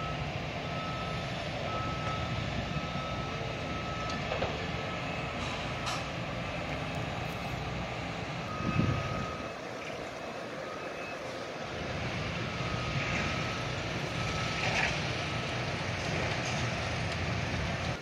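A construction vehicle's reversing alarm beeping in a steady repeating pattern over a low rumble of heavy machinery. The beeping stops after a few seconds and starts again later. There is a brief louder burst of noise about halfway through.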